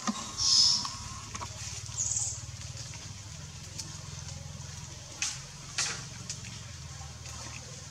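Two short, high-pitched animal squeaks about a second and a half apart, followed later by two sharp clicks, over a steady low hum.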